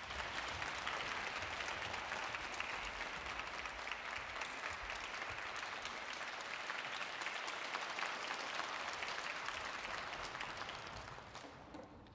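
Concert-hall audience applauding, a dense patter of many hands clapping that holds steady, then dies away over the last two seconds.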